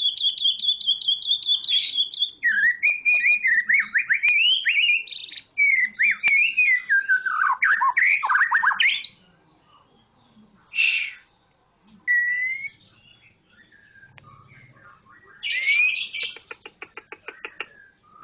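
A bird singing: a fast high trill, then a long run of varied warbling notes sliding up and down in pitch, followed after a pause by a few short calls and a rapid rattling series of clicks near the end.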